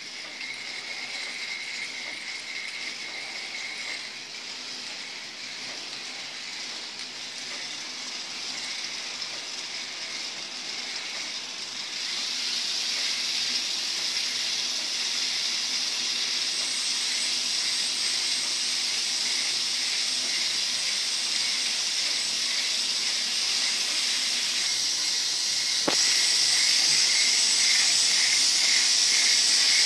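Several small K'NEX electric motors and their plastic gear trains running, a steady high whirring and rattling of plastic gears. It grows louder about twelve seconds in and again near the end, where there is a single click.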